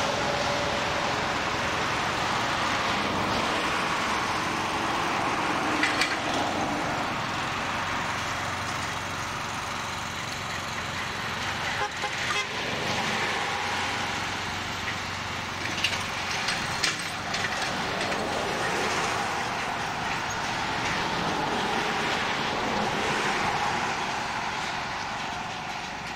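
Small engine on a horse-drawn forecart running steadily, with a few sharp metal clanks.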